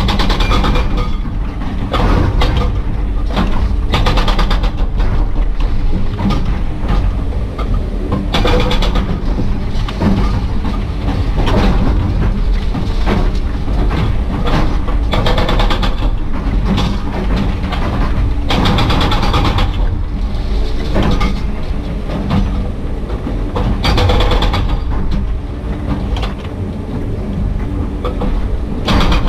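Excavator-mounted hydraulic breaker hammering rapidly on concrete and rock, heard from inside the cab over the machine's steady diesel engine. The hammering comes on more strongly in several runs of a few seconds.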